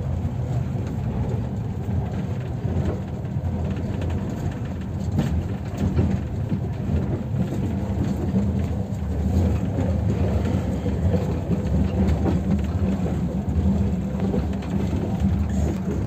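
Steady low rumble of a passenger train carriage under way, heard from inside the compartment.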